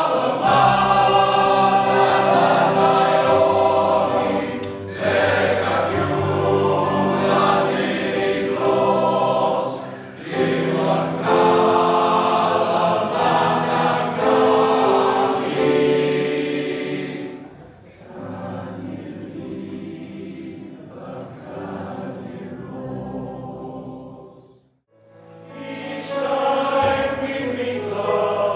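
Male voice choir singing in full harmony. It drops to a softer passage a little past halfway, breaks off for a moment, then comes back in full near the end.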